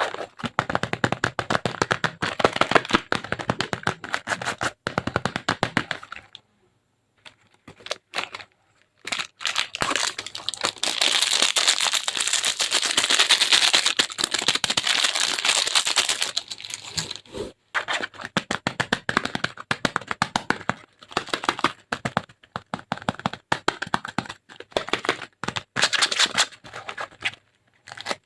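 Bar soap being cracked and crumbled by hand: rapid, dense crackling with a brief near-silent pause about seven seconds in and a thicker run of crackling in the middle.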